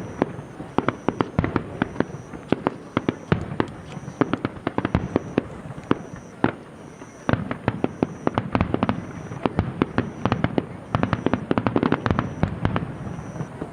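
Fireworks display: a dense, irregular barrage of sharp bangs and cracks, several a second, growing thicker and louder from about halfway through.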